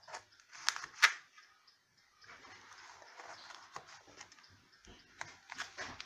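Table knife cutting a slice of pie in a foil pie tin, clicking against the tin and crust. There are two sharp clicks about a second in, then a few seconds of scraping as the blade works through the graham cracker crust, and a few more clicks near the end.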